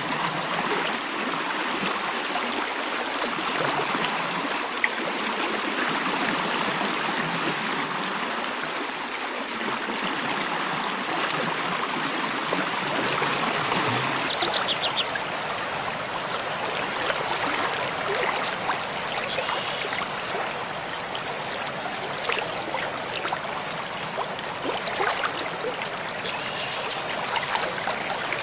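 Mountain stream flowing steadily, an even rushing water sound. About halfway through, a short high bird call sounds over it.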